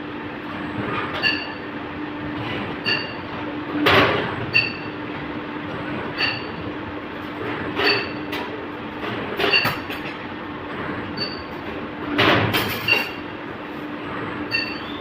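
Automatic CNC ring-making machine bending steel bar into stirrups: a steady motor hum with a ringing metallic click about every one and a half seconds. A few louder clanking bursts come about four, nine and twelve seconds in.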